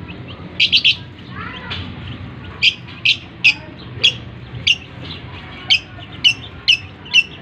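Lovebird giving short, sharp, high-pitched calls: a quick run of three about half a second in, then, after a pause, single calls roughly every half second.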